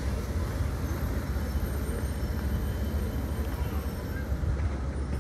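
Steady low outdoor rumble of vehicle noise as a small tourist road train drives away down the road.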